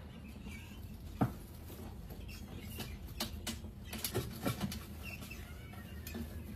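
Many rats scurrying and scrabbling over a glass-tank rodent trap, their claws pattering and scratching on glass, wire mesh and wood, with scattered sharp taps and clicks. The loudest tap comes about a second in, and a cluster of them falls around four to five seconds.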